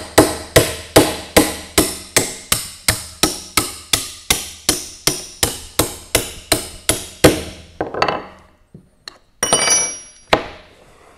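Ball-peen hammer striking a steel wrench held on a Monroe mechanical calculator's digit-wheel shaft, a rapid steady series of sharp metal-on-metal blows, about two and a half a second, driving a stuck digit wheel down off the shaft. The hammering stops about seven seconds in, followed by a few scattered knocks and a brief metallic clatter with some ringing near the end.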